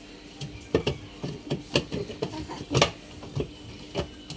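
Irregular sharp knocks and clacks, about six in four seconds, from washing-machine parts being handled while the machine is taken apart for cleaning.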